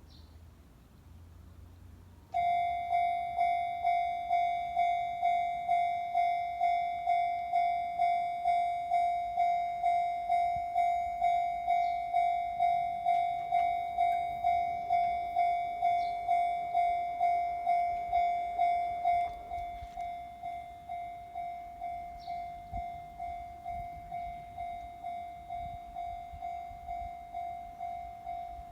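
Japanese level-crossing warning bell ringing: a steady electronic ding repeating about twice a second. It starts about two seconds in, then drops to a lower volume about two-thirds of the way through and keeps ringing.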